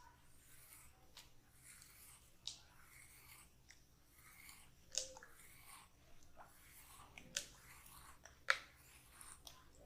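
Hands working oil into a person's hair and scalp: quiet, wet crackling and squishing of fingers through oiled hair, with four sharper clicks scattered through.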